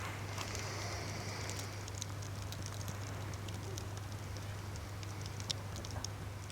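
Fire crackling: irregular sharp pops and snaps over a steady low hum.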